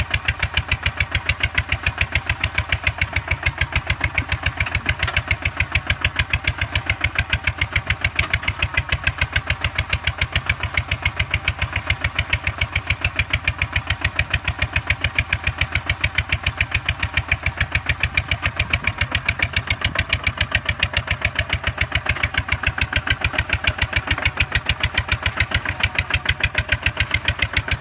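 Two-wheel walking tractor's single-cylinder diesel engine running steadily under load while plowing wet rice-field mud with cage wheels, a rapid, even exhaust beat that does not change.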